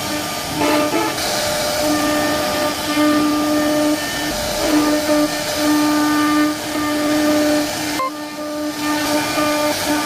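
CNC router carving wood: its spindle gives a steady whine over a rushing cutting noise, the whine dropping out and returning several times as the bit works.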